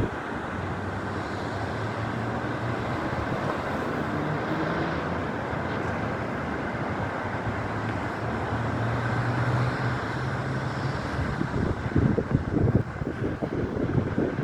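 Road traffic: cars passing at speed on the road alongside, a steady rush with an engine hum rising and fading through the middle. Near the end, strong wind gusts buffet the microphone.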